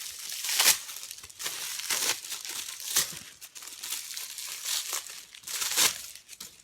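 Packaging wrap around a new handbag crinkling and rustling in irregular bursts as it is handled and pulled off.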